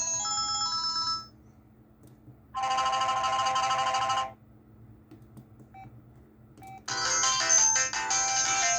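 Huawei ETS688 phone playing its built-in ringtones through its speaker: a melody ends about a second in, then a short burst of tones plays for under two seconds, two short beeps follow, and a new ringtone melody starts near the end.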